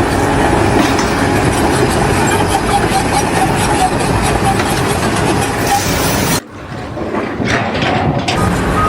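Heavy machinery engine noise. It cuts off abruptly about six and a half seconds in, then returns near the end with a high, steady electronic beep like a reversing alarm.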